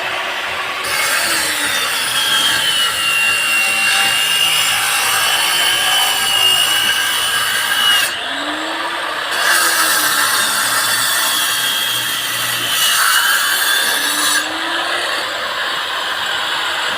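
Angle grinder cutting through a PPRC plastic pipe: a steady high whine that drops in pitch as the disc bites into the plastic, with the hiss of cutting over it. The cutting eases off for about a second around eight seconds in and then resumes; near the end the cutting hiss fades while the grinder keeps running.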